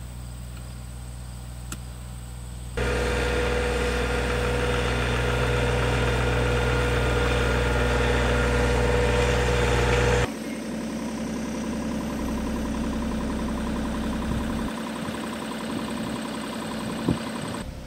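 Engine running steadily at a constant speed, heard in three clips joined by abrupt cuts, loudest in the middle one.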